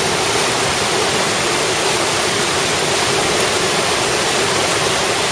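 Flood-swollen creek rushing over rocky rapids: a loud, steady roar of churning whitewater, the creek running high after heavy rain.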